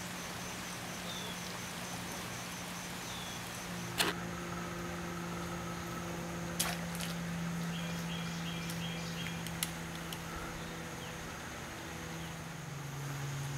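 Outdoor ambience: a steady low hum under faint chirping of birds and insects, broken by three sharp clicks about four, six and a half, and nine and a half seconds in.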